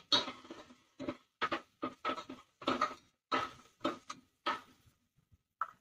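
Steel spoon stirring onions and green chillies in an aluminium pressure cooker, scraping and knocking against the pot in about ten short, irregular strokes, each with the same ringing metallic note.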